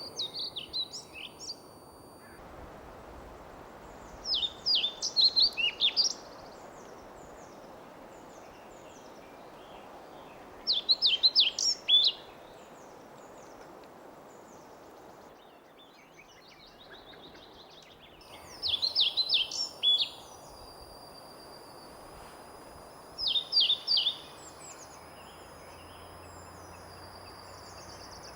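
Male pied flycatcher singing: about five short phrases of quick, high, sweet notes, each lasting one to two seconds, spaced several seconds apart, over a steady background hiss.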